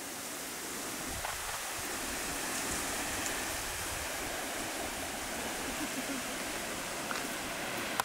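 Steady, even rushing hiss of open-air ambience, a little louder from about a second in, with a few faint ticks.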